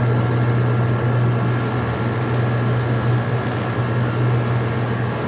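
Window-type air conditioner running: a steady hum from the compressor and fan. Its cooling is weak by the owner's account.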